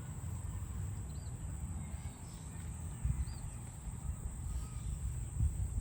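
Outdoor rural ambience: a steady low rumble with a few faint, short high chirps, and no cow heard mooing.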